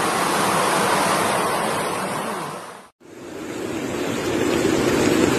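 Rushing floodwater, a steady loud rush of water noise. First it is water surging through a flooded house. After a brief drop to silence about three seconds in, it is a swollen river in flood running fast over a submerged bridge.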